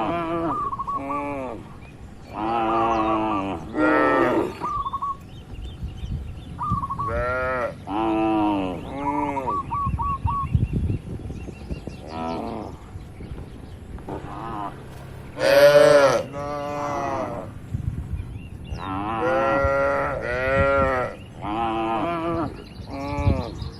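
Cattle mooing over and over: a long string of short moos one after another, some higher-pitched, the loudest about two-thirds of the way through.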